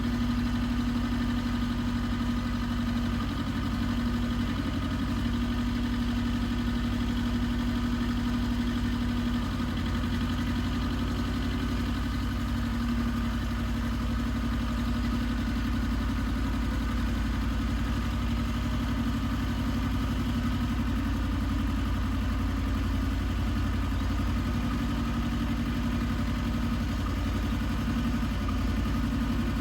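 Engine of an Iseki TX1300 compact tractor running steadily at an even speed, as when ploughing.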